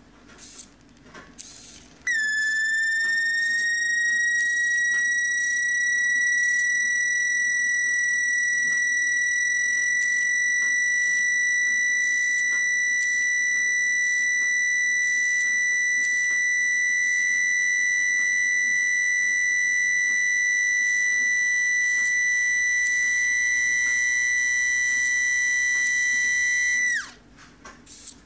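Old 12 V disk-drive DC motor, switched through a TIP120 transistor, running with a steady high-pitched whine and its overtones. The whine starts abruptly about two seconds in with a brief dip in pitch, holds steady, then drops away sharply as the motor stops near the end.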